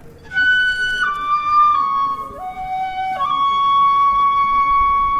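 Japanese transverse bamboo flute (shinobue) playing a slow solo phrase: a few notes stepping downward, a brief dip to a lower note near the middle, then one long held note to the end.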